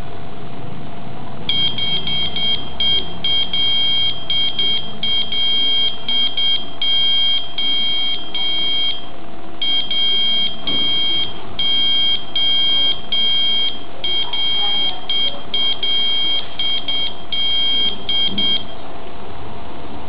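Arduino-driven buzzer beeping out Morse code: a run of short and long high-pitched beeps (dots and dashes), starting about a second and a half in, pausing briefly about halfway, and stopping shortly before the end.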